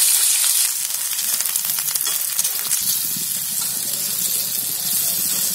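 Hot oil sizzling steadily as sliced onions and then masala-coated okra fry in a kadhai, stirred with a spatula that scrapes and clicks against the pan now and then.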